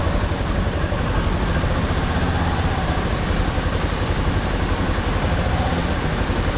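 Yamaha Serow 250's air-cooled single-cylinder engine running steadily, with a constant rushing noise over it.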